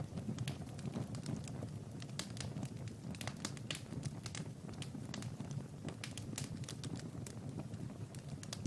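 Wood fire crackling in a fireplace: many irregular sharp crackles over a steady low rumble of burning.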